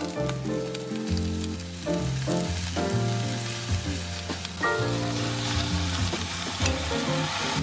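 Soba noodles in a pot of water at a rolling boil, then vegetables sizzling as they stir-fry in a stainless steel pan, the frying hiss stronger from about five seconds in. Light background music plays over it.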